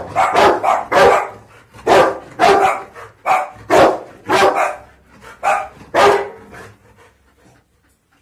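A dog barking repeatedly, about a dozen barks at half-second to one-second spacing, stopping about six seconds in.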